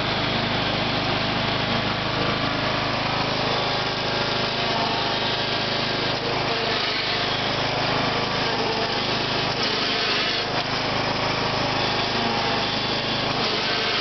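John Deere LA110 lawn tractor engine running steadily as the tractor drives across grass, heard from the driver's seat.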